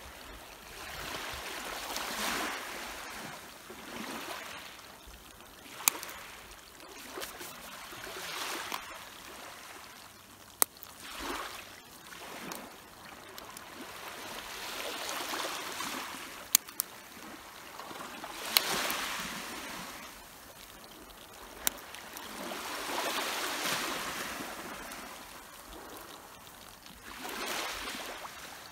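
Small waves washing in at the water's edge, swelling and fading every few seconds, with a few sharp clicks between them.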